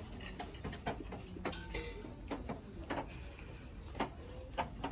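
Shop-floor background: a steady low hum with scattered small clicks and knocks, about ten in all.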